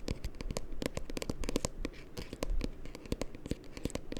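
Close-miked ASMR hand sounds: rapid, irregular scratching and crackling clicks from hands working right at the microphone.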